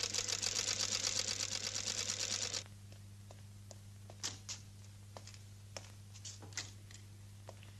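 Old black sewing machine running, a fast even clatter of stitches that stops abruptly about two and a half seconds in. After it, only a few faint scattered clicks and rustles.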